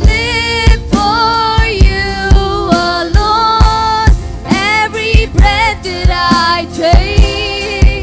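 Worship band music with a singer carrying the melody over a drum kit keeping a steady beat.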